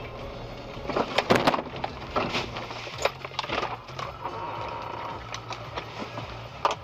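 Vehicle collision: a loud crunching, breaking impact about a second in, then several smaller knocks and clatters, over a steady low hum.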